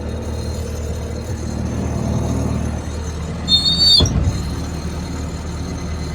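Bobcat T595 tracked skid steer's diesel engine idling steadily. A short high-pitched beep comes about three and a half seconds in, ending in a thump.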